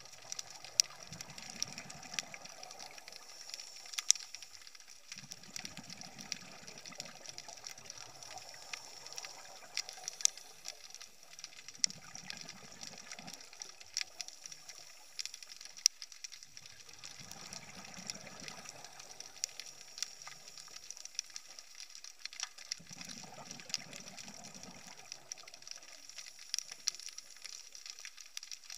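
Scuba regulator exhalation bubbles, heard underwater: a bubbling burst of about two seconds from each breath, recurring roughly every five to six seconds, over a steady faint hiss with scattered sharp clicks throughout.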